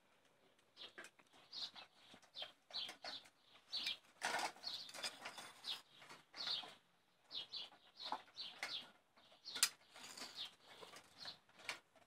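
German Shepherd puppies eating from stainless steel bowls: a stream of irregular wet smacking, chewing and lapping sounds, with one sharper click about ten seconds in.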